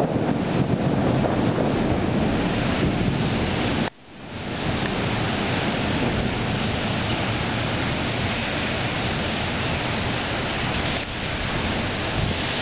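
Steady rush of a summer thunderstorm: rain and rumbling thunder. The sound drops out abruptly about four seconds in and builds back within half a second.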